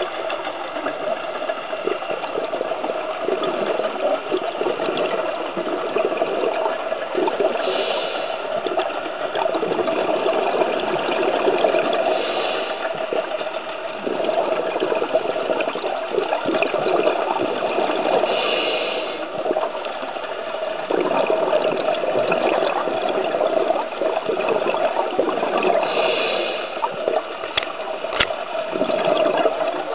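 Scuba diver's breathing heard underwater: a steady rush of water and exhaled bubbles, with a brief hiss four times several seconds apart and a sharp click near the end.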